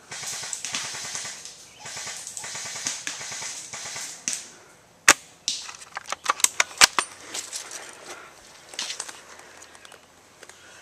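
Airsoft guns firing: a quick run of sharp, irregular pops from about five seconds in, lasting two to three seconds, after several seconds of rustling movement.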